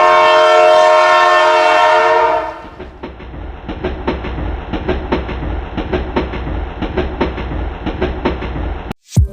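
A train horn sounds loudly and stops about two and a half seconds in. It is followed by a passing train's wheels clicking over the rail joints above a low rumble, which cuts off abruptly near the end.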